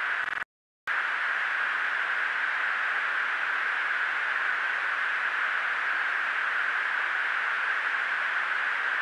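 Steady hiss of a fighter's cockpit intercom recording, with no voices on it. It drops out completely for a moment about half a second in, where one clip is spliced to the next.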